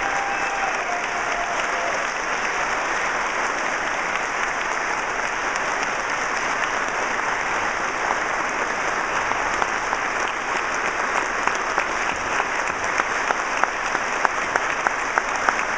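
Audience applauding steadily, with louder single claps standing out in the second half.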